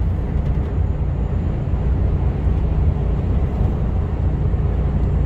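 Mercedes Actros HGV cruising on a motorway, heard from inside the cab: a steady low engine drone mixed with tyre and road noise, without change.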